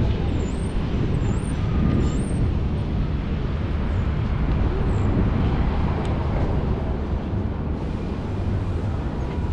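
City street traffic: a steady low rumble of vehicles running and passing, with a few faint high chirps in the first two seconds.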